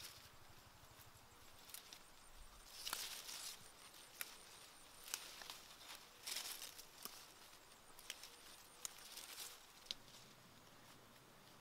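Faint rustling of water spinach vines being picked by hand, in short bursts, with a few sharp clicks of stems snapping.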